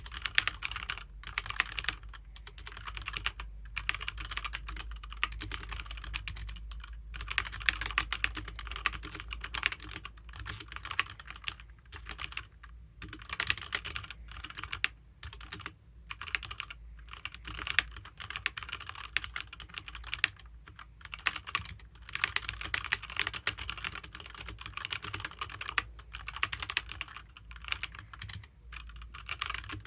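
HyperX Alloy Origins mechanical keyboard with HyperX Red linear switches being typed on: fast runs of keystrokes broken by brief pauses.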